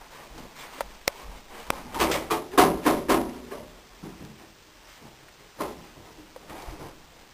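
Clothes dryer door being opened and a person clambering into the drum: a few sharp clicks, then a cluster of knocks and bumps about two to three seconds in, and a lighter knock later.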